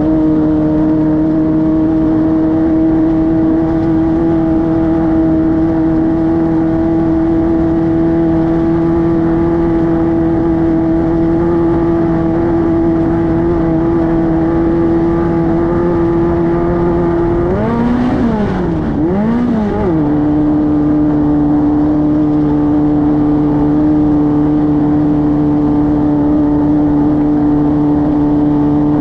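Class 5-1600 race car's air-cooled 1600cc VW flat-four engine running hard at steady high revs. About two-thirds of the way through, its pitch swings up and down twice, then settles a little lower.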